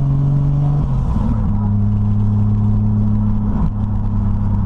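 Turbocharged Toyota 1JZ straight-six pulling the car along, heard from inside the cabin. The engine note steps down in pitch about a second in and then holds steady, with a brief waver near the end.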